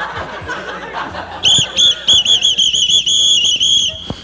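A whistle blown in a quick rhythm of short toots and a few longer held blasts, starting about a second and a half in.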